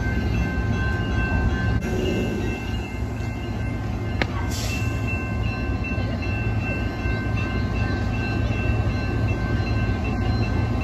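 Amtrak passenger cars rolling through a grade crossing: a steady low rumble of wheels on the rails, with the crossing signal's bell ringing over it. One sharp click about four seconds in.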